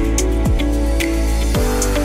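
Background music with a steady beat: a deep kick drum about twice a second with high percussion ticks, over held synth chords that change about one and a half seconds in.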